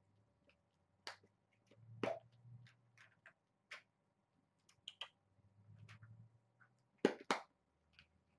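Scattered crinkles and clicks of a plastic packet being handled, with two louder sharp crackles close together about seven seconds in.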